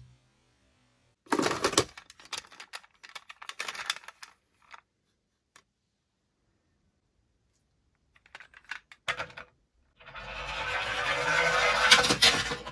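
Light plastic clicks and rattles, then after a pause a rolling rattle of a small die-cast toy car on a plastic track that grows louder for about two seconds and stops abruptly.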